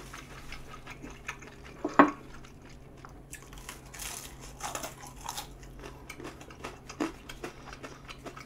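Close-up biting and chewing of crispy Kyochon Honey Combo fried chicken: crunchy crackles and mouth sounds, with one loud sharp sound about two seconds in.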